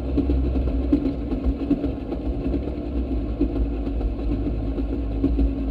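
Railroad speeder (track motorcar) under way on the rails, its small engine running steadily.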